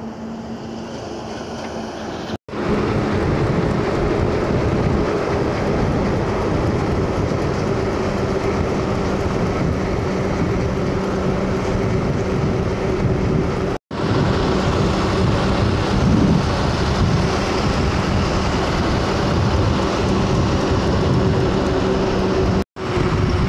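Heavy goods trucks driving past on a highway: a loud, steady drone of diesel engines and tyre noise, quieter for the first couple of seconds. The sound cuts out for an instant three times.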